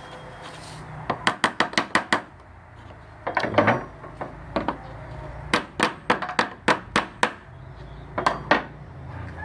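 A tool tapping on metal scooter parts in quick runs of light strikes, about seven in a row at first, then shorter runs, as a glued rubber bushing is worked into its seat.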